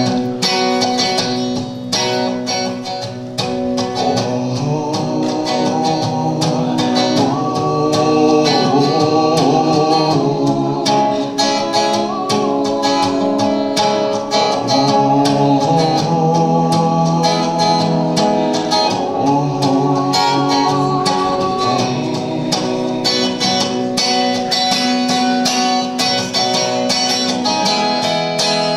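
Live song accompanied by plucked acoustic guitar, with a voice singing a wavering melody over it.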